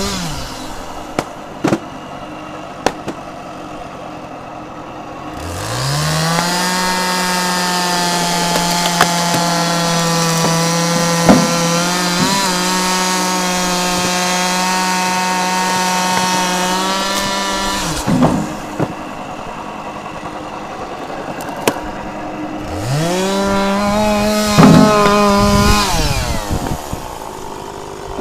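1980s Stihl two-stroke chainsaw idling, then brought up to full throttle about five seconds in and held there for about twelve seconds while it cuts wood. It drops back to idle, then revs again for a shorter cut a few seconds before the end.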